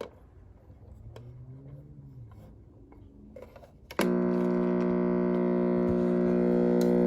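A few faint clicks, then about four seconds in the Panasonic RC-6015 flip clock radio's alarm buzzer comes on abruptly and sounds a loud, steady, harsh buzz.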